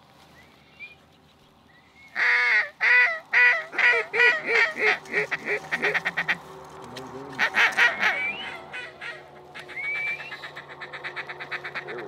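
Goose honking in loud, rapid runs of calls: one starting about two seconds in and speeding up, another near eight seconds, then quicker, softer clucking notes near the end.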